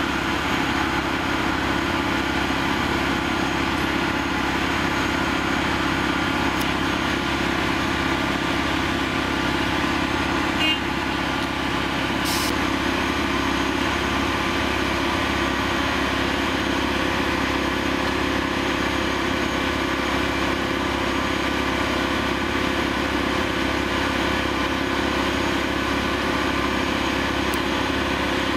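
Diesel power unit of a track-mounted Plasser & Theurer APT 1500 RA flash-butt rail welding machine running steadily, with a short hiss partway through.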